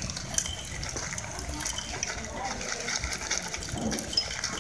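Caustic soda flakes pouring from a plastic bag into a motorcycle exhaust pipe, a steady trickle of many small clicks against the metal as the pipe is loaded to dissolve its carbon deposits.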